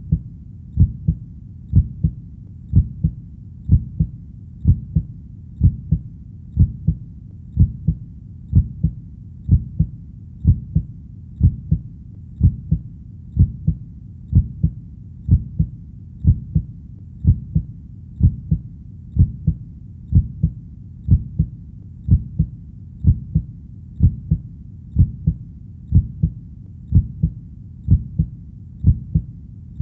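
Heartbeat sound: deep, muffled lub-dub double thumps in a slow, even rhythm of about one beat a second.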